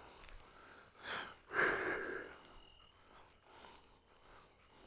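Breathing: a short noisy breath about a second in, then a longer one just after.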